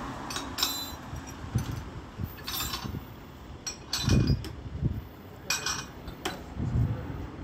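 Gusts of wind buffeting the microphone in low thumps, with brief rustles and clicks from handling the phone. A departing jet airliner is faint in the background.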